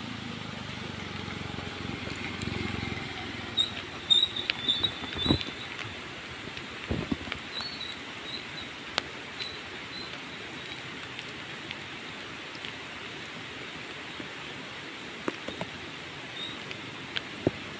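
Motor scooters passing on a wet, broken asphalt road in light rain. The engine and tyres of the nearest one swell as it goes by about two seconds in. Short high chirps come around four and eight seconds in, over a steady hiss of drizzle with scattered drips and clicks.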